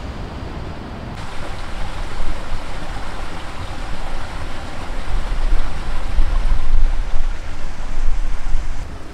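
Wind buffeting the microphone: a gusting rumble with a rushing hiss that gets louder from about a second in.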